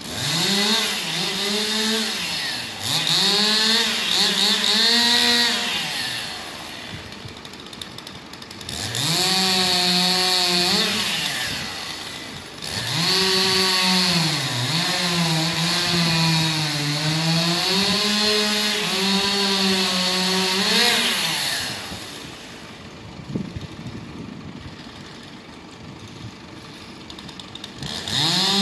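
Chainsaw cutting up a fallen tree trunk, its engine revving hard in repeated bursts as it cuts and dropping back in between; after the longest cut, about nine seconds, it stays low for several seconds before revving again at the very end.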